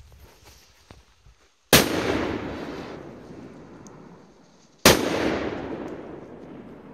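Two firecracker bangs about three seconds apart, each trailing off over a couple of seconds: first a Tropic TP2 (P1 sound emitter), then an FP3 petard. The TP2 is slightly louder.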